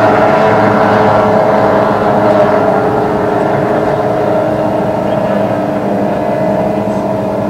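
Several outboard hydroplanes' two-stroke racing engines running flat out, a steady buzzing drone that gradually gets quieter as the boats run down the course.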